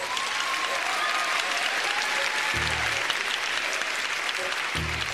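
Theatre audience applauding, with low music notes coming in about halfway through.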